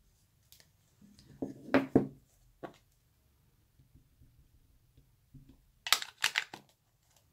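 Light clicks and taps of a hard acrylic stamp block and craft supplies being handled and set down on a wooden tabletop: a cluster of taps about two seconds in, then three sharper taps about six seconds in.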